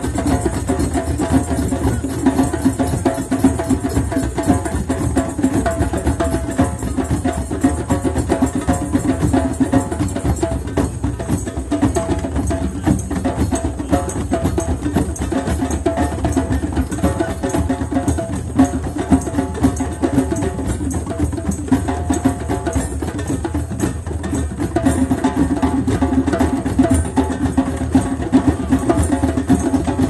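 Rhythmic drumming, a steady, fast stream of drum strokes that keeps going without a break.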